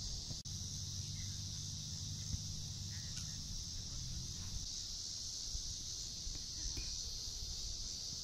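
Steady, high-pitched insect chorus in the summer grass, with a low rumble underneath and a few faint knocks.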